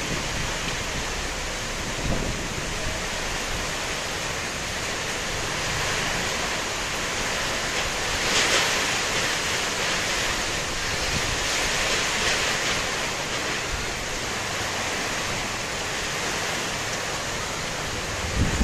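Heavy tropical-storm rain pouring steadily, with gusts of wind; the downpour grows louder and hissier about eight seconds in for several seconds, then eases back.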